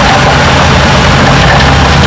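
Diesel engine of heavy earthmoving equipment running steadily with a low drone.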